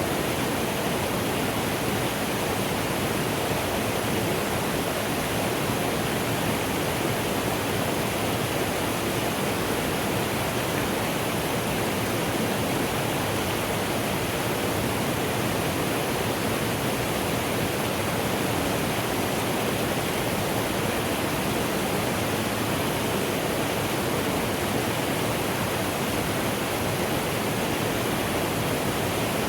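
Mountain stream rushing steadily over rocks, an even, unbroken noise of flowing water.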